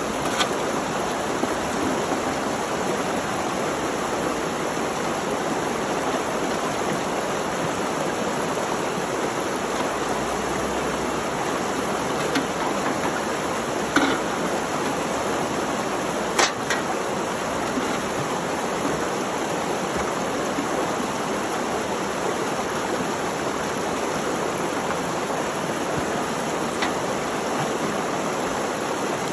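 Creek water rushing steadily over rocks, with a few light knocks now and then.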